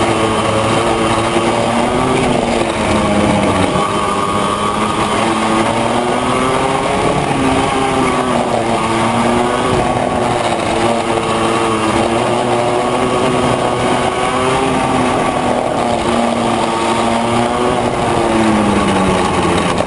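Yamaha KT100J two-stroke kart engine heard onboard at racing speed, its revs rising and falling as the kart brakes and accelerates through the corners. Near the end the revs drop away as the kart slows.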